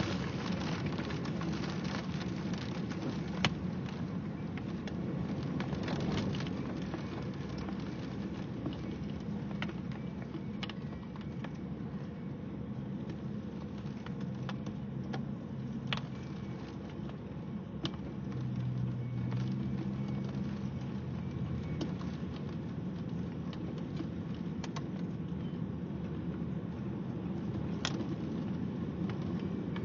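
Rain falling steadily, with scattered sharp drop strikes. A low hum comes in and fades again about two-thirds of the way through.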